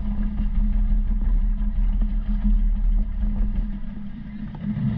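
A dinghy's outboard motor running steadily at low speed, a low, even engine note.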